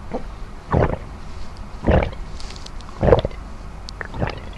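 A person gulping water from a plastic bottle, close-miked: four loud swallows about one a second.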